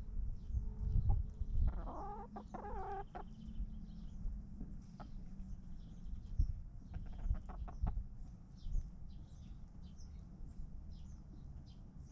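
Chickens clucking, with a louder run of drawn-out calls about two seconds in and a quick string of short clucks near the eighth second.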